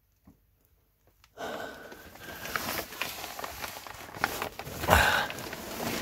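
Plastic vapor barrier sheeting crinkling and rustling under a person crawling over it, with a thump about five seconds in; the rustling starts suddenly about a second and a half in, after near quiet.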